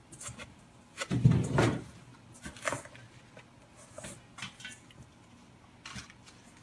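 A utensil knocking and scraping in a stainless-steel mixing bowl: scattered short clicks, the loudest a dull thump about a second in.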